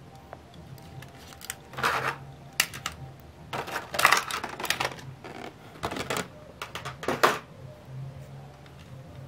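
Diecast model cars and their packaging being handled: several short bursts of clicks, knocks and rustles, the loudest about four seconds in.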